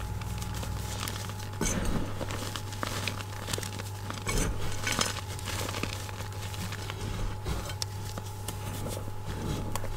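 Hands squeezing and crumbling powdery gym chalk: soft, irregular crunching and crackling, a little louder around two seconds in and again around the middle. A steady low hum runs underneath.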